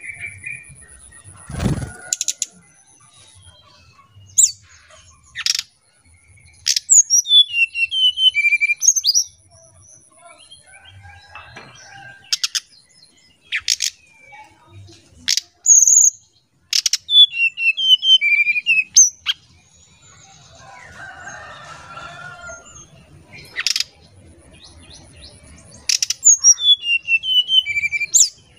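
Brown-chested jungle flycatcher singing its flute-like lure song: repeated phrases of clear whistled notes stepping down in pitch, about every nine seconds, with short sharp clicky notes between phrases. There is a single thump about two seconds in.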